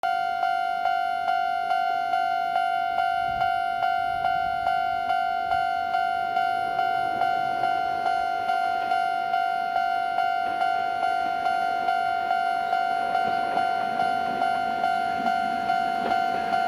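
Japanese railway level-crossing warning bell ringing, one bright electronic ding repeating a little over twice a second. The rumble of an approaching electric locomotive grows beneath it from about halfway.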